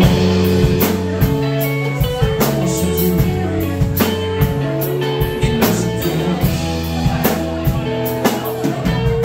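Live rock band playing an instrumental passage without vocals: electric bass, electric guitar and a drum kit keeping a steady beat.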